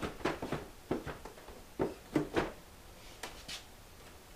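A string of light, irregular plastic clicks and knocks as the small drawers of a wall-mounted multi-drawer parts organizer are handled and slid in and out. The loudest knocks come a little after two seconds, and it goes quiet for the last second.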